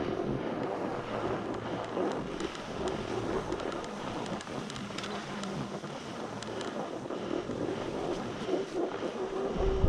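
Wind rushing over the microphone while skis slide over groomed snow with a steady hiss. A deep wind rumble swells just before the end.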